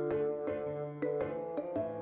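Gentle background music with a steady pulse of plucked or struck notes over a held bass line.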